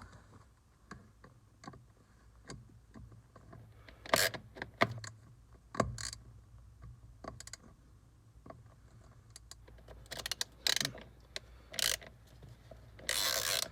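Scattered clicks and knocks of a screwdriver working a Phillips screw out of a car's plastic lower steering-column cover, with a short scraping burst near the end.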